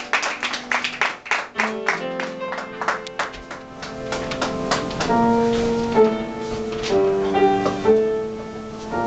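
Scattered audience clapping dies away over the first two seconds. Men's voices then hold close-harmony chords, wordless, each chord sustained and shifting to the next about once a second, as the intro to the song.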